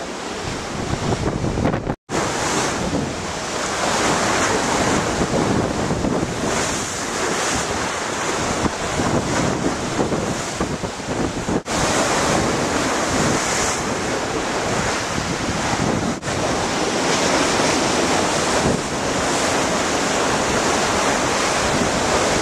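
Rushing water and spray along the hull of a Swan 45 racing yacht planing at speed, with wind buffeting the microphone. The sound drops out for an instant about two seconds in.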